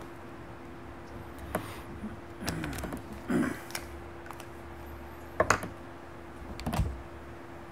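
A few scattered clicks and knocks of pens being handled on a desk while a failing ballpoint is swapped for a backup pen, over a steady faint hum.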